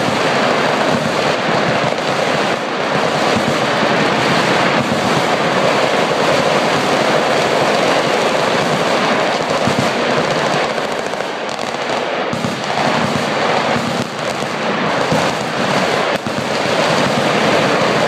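Many machine guns firing at once from a firing line, a dense, unbroken barrage of automatic fire with shots overlapping continuously and no pauses.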